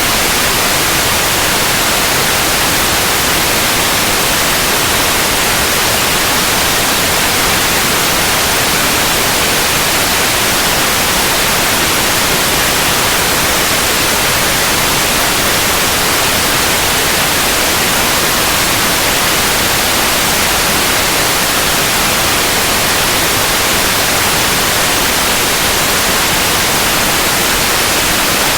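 Steady, unbroken white noise, an even hiss across the whole range, loudest in the highs, with no changes.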